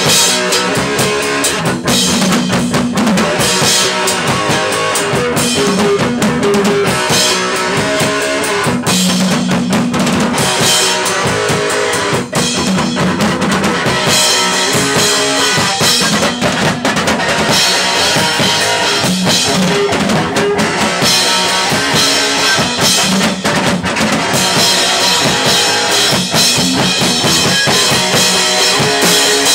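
Live rock band playing an instrumental: a drum kit keeps a steady beat with bass drum and cymbals, under electric guitar and bass.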